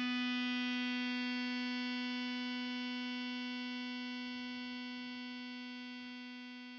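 Dark ambient drone music: a single sustained note with a bright stack of overtones, held steady in pitch and slowly fading out.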